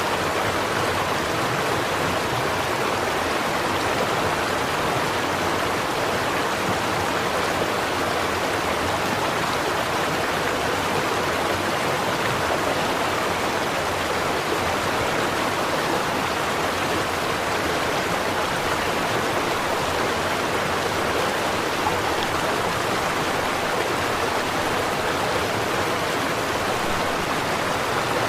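A creek's water running and babbling over stones, a steady, even rush with no breaks.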